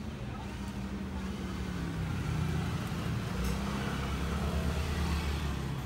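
Street traffic: a motor vehicle's engine running with a low steady rumble, growing louder from about two seconds in.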